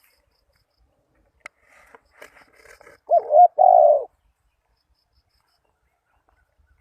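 Spotted dove cooing: two short looping notes followed by a longer held coo, about three seconds in, after a second or so of faint rustling and ticks.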